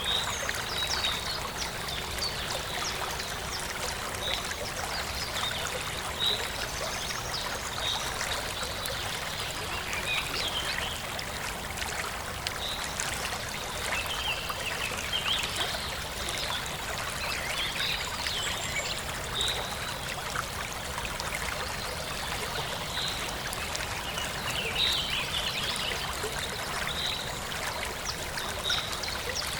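Forest stream flowing steadily, with birds chirping over it; one bird repeats a short high note every couple of seconds.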